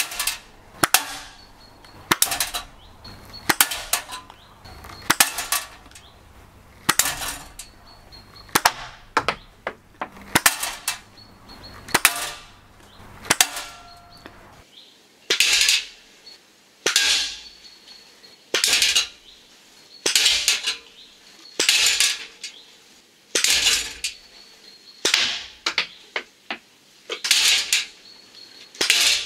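Cheap copy of a Pocketshot pouch slingshot firing 10 mm stainless steel balls: a snap at each release, followed by the ball striking a metal target box with a sharp metallic clack. The shots come quickly one after another, about one a second or two.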